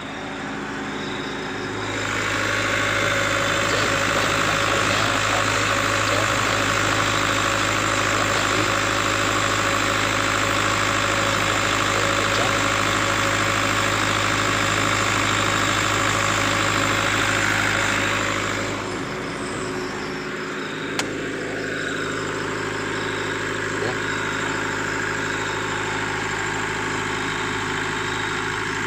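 Yanmar 4TNV98 four-cylinder diesel engine of a 35 kVA silent generator set running steadily at its normal governed speed. The hum is louder from about two seconds in until about eighteen seconds, then settles lower.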